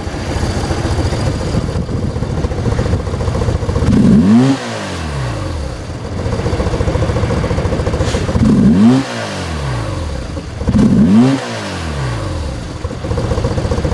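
BMW R1100R's 1085 cc boxer twin running at idle, blipped three times. Each rev rises and drops back to idle within about a second, about four seconds in, near nine seconds and again about two seconds later.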